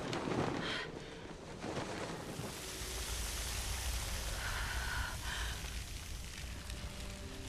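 Film sound effect: a sudden whoosh, then a steady rushing noise over a deep rumble.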